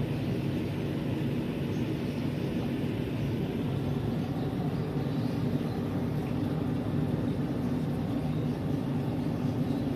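Steady low mechanical hum of an aeration air pump running the fry tank's sponge filter.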